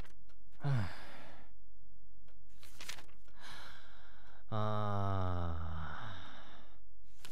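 A man's voice sighing heavily: a short falling groan, a breathy sigh, then a long drawn-out groaning sigh that sinks in pitch. The sighs of listless dejection, with no motivation to look for a job.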